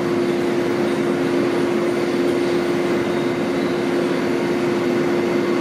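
R160-series subway train standing in the station with its doors open, its air-conditioning and onboard equipment giving off a steady hum with one clear held tone.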